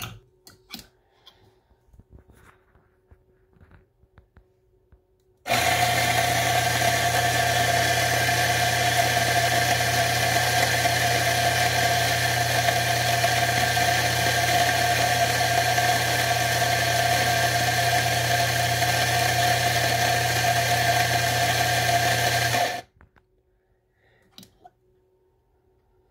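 Ceado electric espresso grinder running steadily for about seventeen seconds, grinding coffee beans into a portafilter, then cutting off sharply. A few light clicks come before it starts.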